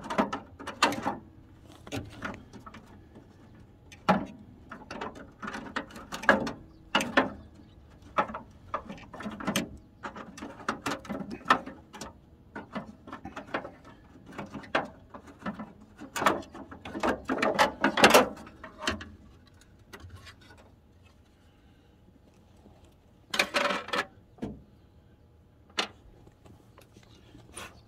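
Hand ratchet clicking in short runs as screws are backed out of a Chevy S10 pickup's plastic grille and headlight surround, with knocks and rattles of the loosened parts. The clicking comes in quick clusters for most of the time, then thins out to a couple of short rattles near the end.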